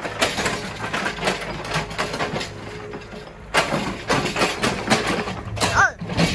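Mini excavator's diesel engine running under load while its bucket knocks and scrapes through broken concrete and brick rubble, with repeated clatter of debris. The knocking grows louder about halfway through.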